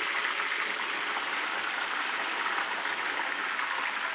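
Chicken pieces marinated in lemongrass, with sliced lemongrass, deep-frying in hot oil: a steady, even sizzle.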